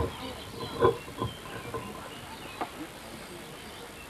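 Outdoor crowd ambience: faint scattered voices and movement over a low hiss, with a sharp click right at the start.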